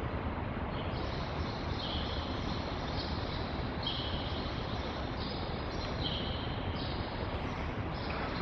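Steady hiss and hum of an old camcorder tape recording, with faint high tones that jump in pitch every second or so; no distinct sounds stand out.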